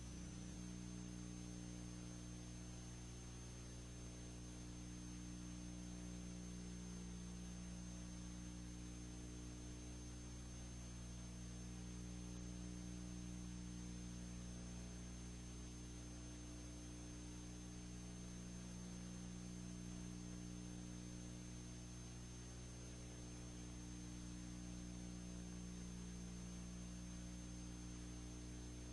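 Steady low electrical hum with a thin high whine and hiss, unchanging throughout: the noise floor of a silent film's transfer, with no other sound on the track.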